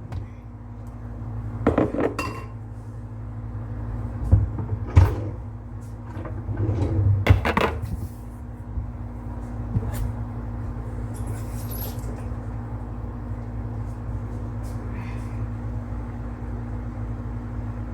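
Kitchen clatter: a handful of sharp knocks and clinks of pots and utensils in the first half, over a steady low hum.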